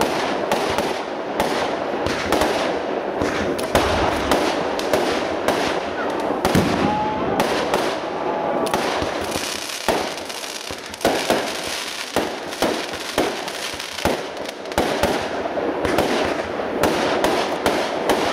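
Aerial firework shells bursting in quick succession: a dense, continuous run of bangs and crackles, easing briefly about ten seconds in before picking up again.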